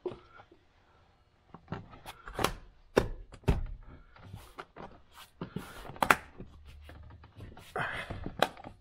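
Plastic seat trim and power seat switch parts being handled and fitted against the seat: a run of irregular sharp knocks and clicks, several of them loud.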